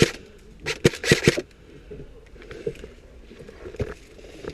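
Airsoft guns firing a short rapid burst of sharp clicking shots about a second in, with a few fainter single shots later.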